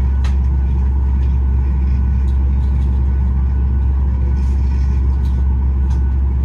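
Steady cabin noise of a Boeing 737-8 MAX taxiing: a deep, even rumble from the CFM LEAP-1B engines at low power and the air-conditioning, with a few steady tones over it and faint clicks now and then.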